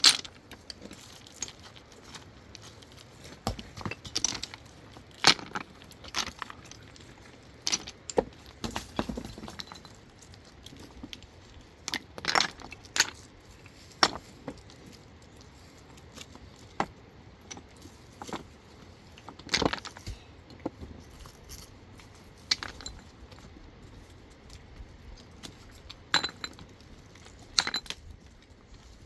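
Stones clicking and knocking against each other as they are handled and set while building a stone wall: sharp, irregular clacks coming in clusters, with quieter stretches between.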